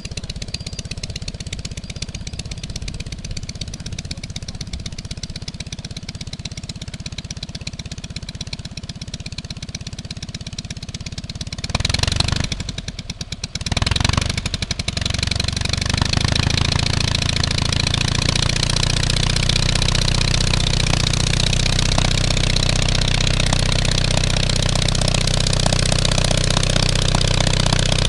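Engine of a home-built reproduction 1924 Hawker Cygnet light biplane running with its propeller turning, first at a steady idle. About twelve seconds in, it surges, falters for a moment, then picks up and settles at a higher, louder, steady speed.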